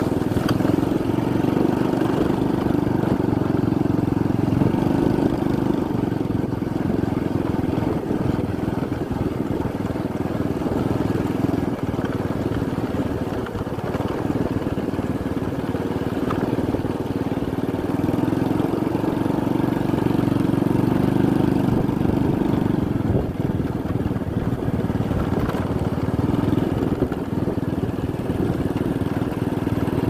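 Motorcycle engine running steadily on a ride along a rough dirt road, swelling slightly in loudness now and then.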